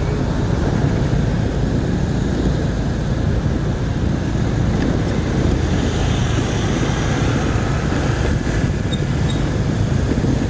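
Steady low rumble of motorbike and car traffic, heard from a moving vehicle keeping pace with a motor scooter.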